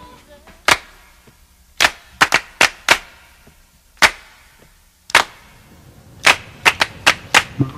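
About a dozen sharp cracks or pops at irregular intervals, several coming in quick clusters, like shots from a cap gun.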